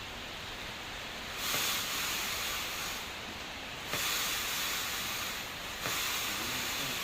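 Small Minifogg fogging machine hissing steadily, with three surges of louder hiss of about one and a half to two seconds each.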